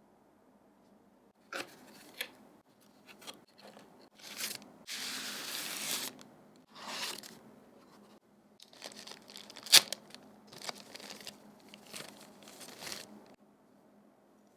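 Keyboard packaging being unwrapped by hand: a run of crinkling and tearing sounds, with one longer steady tear about five seconds in and a sharp snap, the loudest sound, near ten seconds.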